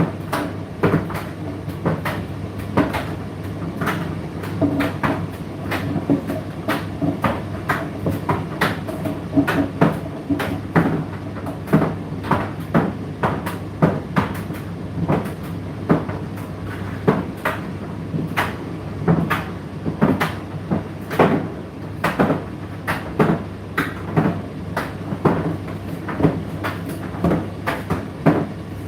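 Indesit IDC8T3 condenser tumble dryer running, with a steady low motor hum under irregular knocks and clunks, about two to three a second, as the load tumbles in the turning drum.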